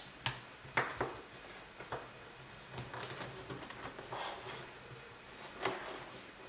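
Several light clicks and knocks, with some soft rustling in between, like small objects being handled.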